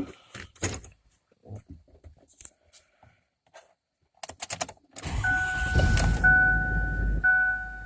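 Faint key and switch clicks, then about five seconds in the 2008 Ford F-350's 6.4 L Powerstroke V8 turbo diesel cranks and catches almost at once on a cold start without glow plugs at about 55 °F. It runs loud for about two seconds, a little rougher than normal, then settles toward idle. A steady two-tone dashboard chime repeats alongside.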